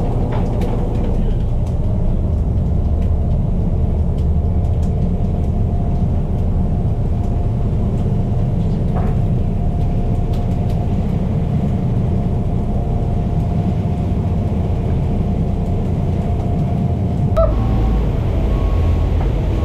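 Sportfishing boat's engines running with a steady low rumble and a faint steady tone over it. About three seconds before the end, the rumble turns louder and heavier as the boat runs at speed.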